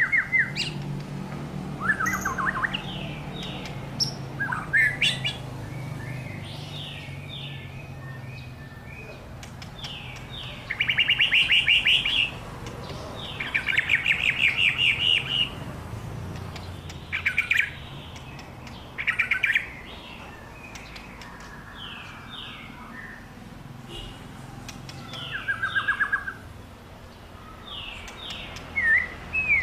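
White-rumped shama singing in bursts of rapid repeated notes, each burst a second or two long and several seconds apart, with short single notes in between.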